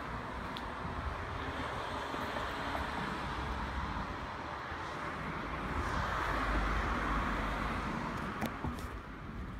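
Street traffic noise, with a car passing that swells to its loudest about six to seven seconds in. A sharp click sounds near the end.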